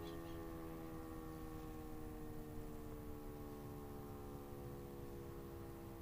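E57 motor siren sounding the fire-alarm signal, heard fairly faint: a chord of tones that slides slowly and steadily lower in pitch as the rotor runs down, fading a little.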